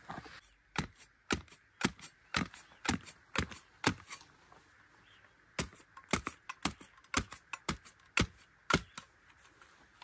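Sharp knocks in two runs of seven strikes, about two a second, with a pause of well over a second between the runs.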